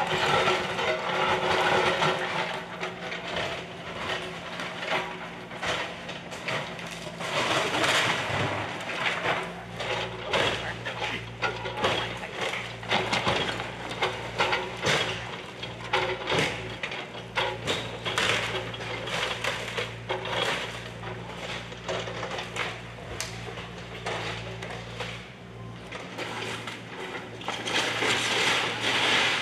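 Bobcat mini excavator's diesel engine running while its bucket breaks through a house's wooden walls and siding, with repeated cracking, splintering and crashes of falling debris. The engine note drops to a lower pitch about nine seconds in.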